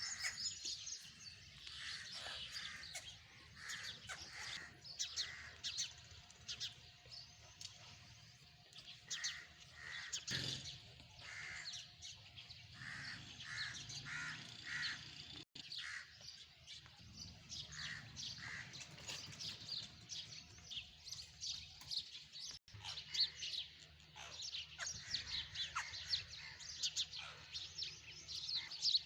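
A chorus of birds chirping and calling, dense short chirps throughout with repeated louder calls.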